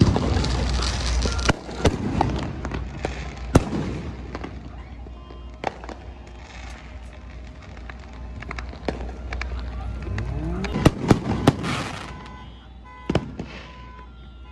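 Aerial fireworks exploding: sharp bangs spaced irregularly, with crackling between them, and a quick run of several bangs about eleven seconds in.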